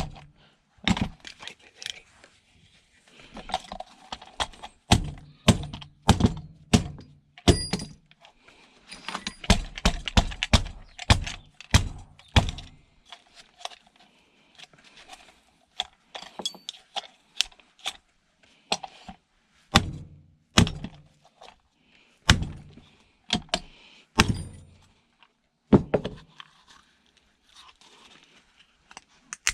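Hand-scrapping of e-waste: a run of knocks, clunks and clacks as small metal and plastic parts and hand tools are handled and dropped, with light clinks of metal pieces. The knocks come thickest in the first half.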